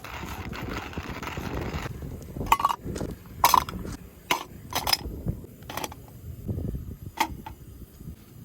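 Rustling for about two seconds, then a series of about six sharp, separate knocks and clinks, some with a short ring, like hard objects being handled and set down.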